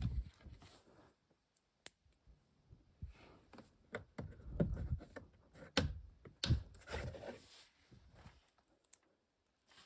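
Hand work on small parts: scattered sharp clicks, short light knocks and rustling, with a few crisp clicks spread through.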